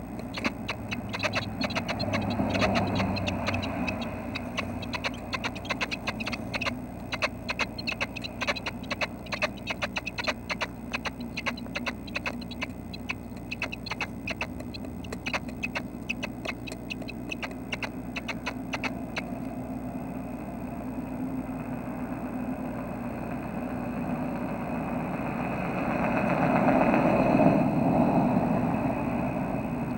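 Quick, irregular scratching and tapping of red-breasted nuthatch nestlings shifting about in the nest cavity, close to the camera, for the first twenty seconds or so. Near the end a rushing noise swells and fades.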